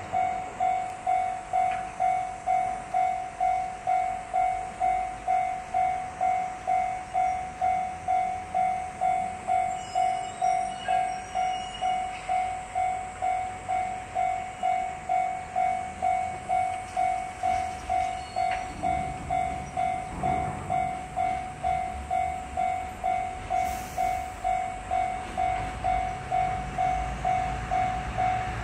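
Japanese level crossing's warning bell ringing steadily, one clanging tone repeated just under twice a second. A low rumble builds near the end.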